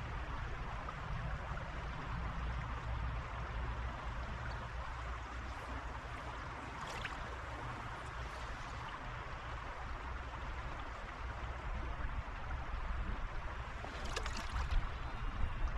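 Flowing water of a small upland stream, a steady rush with a low rumble underneath, and a couple of brief faint ticks about halfway through and near the end.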